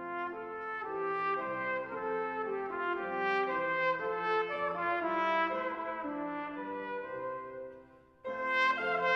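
Solo trumpet playing a melody in held notes. The phrase dies away about eight seconds in, and the next phrase comes in just after.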